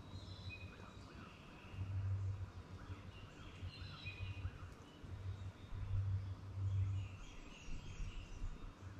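Several songbirds chirping and calling over a low rumble that swells about two seconds in and again around six to seven seconds in.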